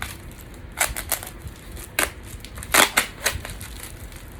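Crackling, crinkling packaging handled around a ceramic fibre insulation blanket, in a handful of short, sharp rustles; the loudest comes about three seconds in.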